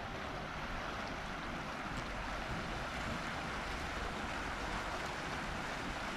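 Shallow river rapids rushing steadily over rocks.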